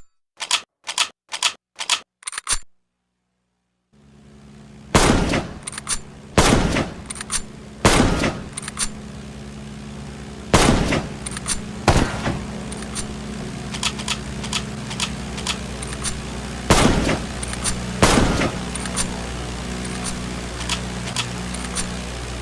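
Springfield M1903 rifle (.30-06) gunshots. A quick run of about seven sharp cracks is followed by a short silence. Then single loud shots, often in pairs about a second and a half apart, with fainter cracks between, over a steady low rumble.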